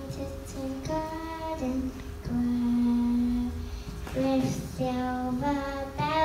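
A young girl singing solo into a handheld microphone, a slow melody of held notes, the longest sustained for about a second about two seconds in.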